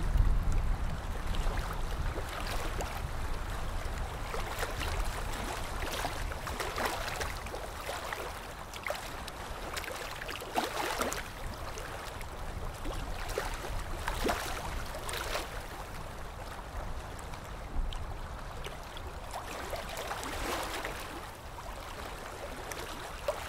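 Water splashing and lapping irregularly, with a low rumble strongest in the first couple of seconds.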